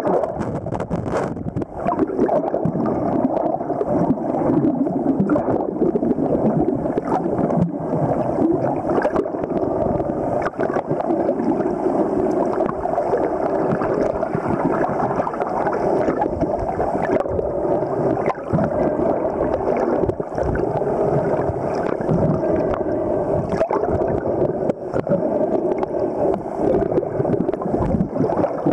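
Underwater sound of water moving and gurgling around the camera, a steady rushing noise with scattered small clicks.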